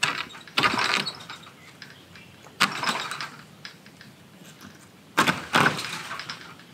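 Old, rotted plastic bird netting being pulled and torn down from the top of a chicken run, in three short rustling, tearing bursts a couple of seconds apart.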